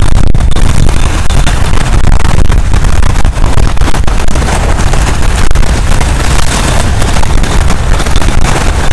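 Strong sea wind buffeting the microphone, loud and unbroken, over waves breaking against the shore rocks.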